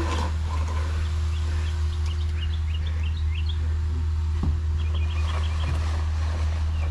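A concrete mixer truck's engine running steadily with a low rumble. Birds chirp over it in short runs, about two seconds in and again near the end.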